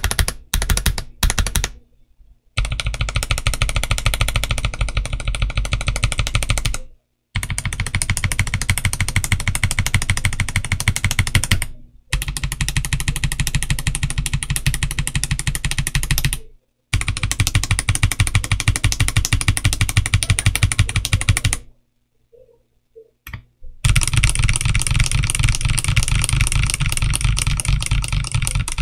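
A stock Machenike K500F mechanical keyboard with Ice tactile switches and polycarbonate OEM-profile keycaps being typed on fast. The clacking comes in runs of several seconds with brief pauses between them.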